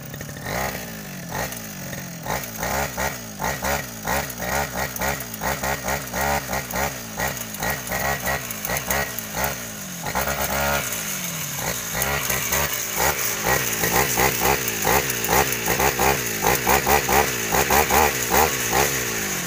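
Backpack brush cutter's small petrol engine blipped on and off the throttle in a rhythm to play a 'tune': it revs up and drops back about twice a second, holds one longer rev about halfway through, then blips faster near the end.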